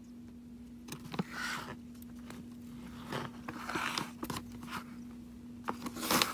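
A guinea pig nosing and biting at a plastic-lined bag of pea flakes: the bag rustles and crinkles in short bursts with small clicks, the loudest rustle near the end.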